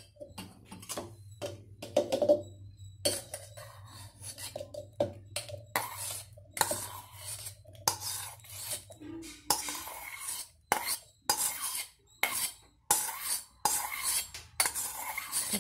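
Steel spoon clinking and scraping against a stainless steel bowl as cut apple pieces are scooped and tipped into a plastic blender jar: an irregular run of short clatters.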